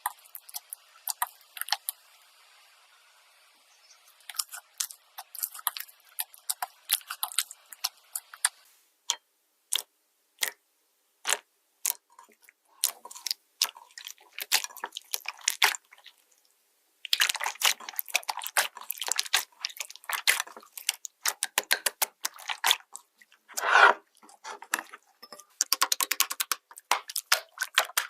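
Slime being squeezed and poked by hand: a run of sharp clicks, crackles and wet pops, with a brief pause about two-thirds of the way through.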